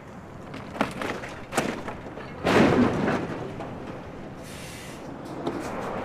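Vehicles colliding in a highway pileup on snow: a couple of sharp knocks, then a loud impact about two and a half seconds in, over a steady outdoor noise of wind and traffic.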